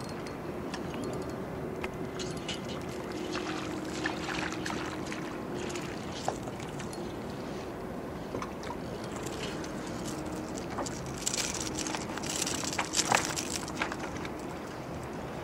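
Outdoor wind and water noise with a faint steady hum that comes and goes. Scattered sharp clicks run through it, thickening into a spell of louder clicks and rattles near the end as a hooked blue runner is brought up to the pier railing.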